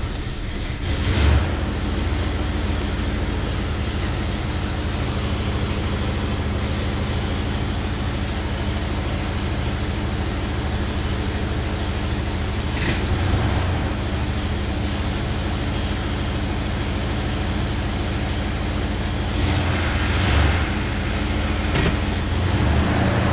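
1966 Ford Galaxie 500's 352 FE V8 idling steadily as it warms up after a cold start, heard from inside the cabin. The sound swells briefly three times: about a second in, around thirteen seconds, and around twenty seconds.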